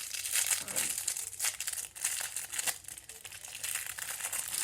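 Packaging crinkling and rustling as it is handled and pulled open to get a small squishy toy out.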